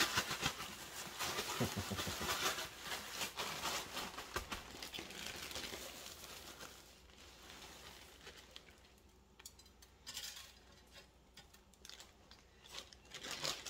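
Plastic zip-top bag holding crushed corn flakes crinkling and rustling as chicken pieces are worked and shaken in it to coat them, with the flakes crunching. Busiest in the first half, then quieter with a few short bursts near the end.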